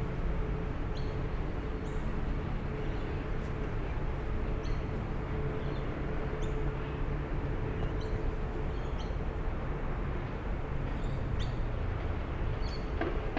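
City park ambience: a steady low rumble of surrounding city traffic, with short high bird chirps scattered through it and a faint steady hum underneath.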